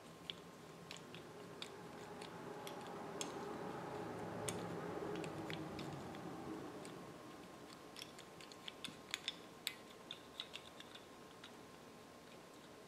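Light clicks and taps of plastic hand grippers being handled and squeezed, scattered at first and coming in a quick cluster about two-thirds of the way through. A faint hum swells and fades in the middle.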